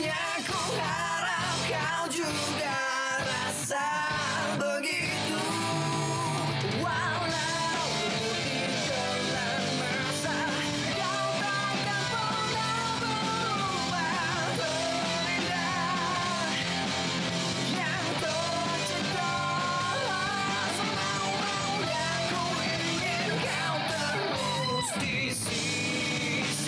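The drama's theme song: singing over instrumental backing.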